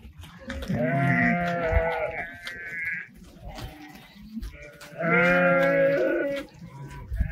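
Sheep of a flock bleating: long calls, one starting about half a second in and running into a second voice until about three seconds, then a louder one about five seconds in.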